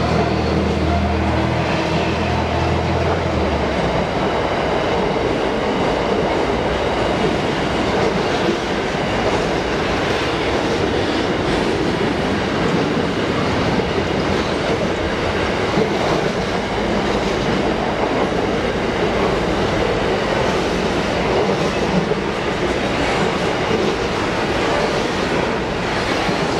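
Freight train container wagons rolling past at a steady pace: continuous noise of steel wheels running on the rails. A low steady hum underneath stops about four seconds in.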